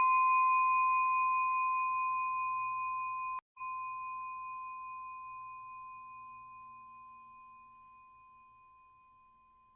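A single bell-like chime struck once, ringing and slowly fading away, with a brief dropout about three and a half seconds in.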